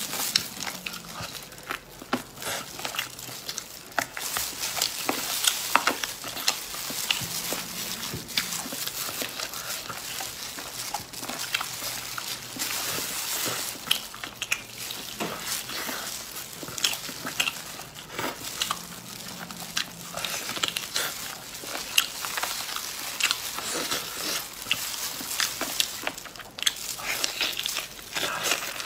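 Close-up wet chewing and lip-smacking while biting meat off a grilled rib, with many short sharp smacks and clicks.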